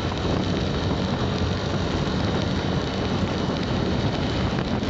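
Steady rush of wind and rain on the microphone of a motorcycle riding through rain, with the engine's low hum underneath.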